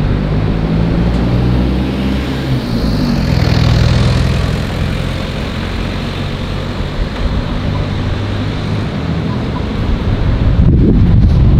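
Road traffic passing on a busy road: a steady wash of vehicle engines and tyres, with a deep engine hum strongest in the first few seconds. Wind buffets the microphone near the end.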